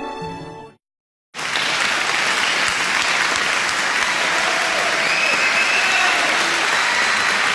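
Music fades out, and after a brief silent break a crowd applauds, a dense and steady clapping that lasts to the end.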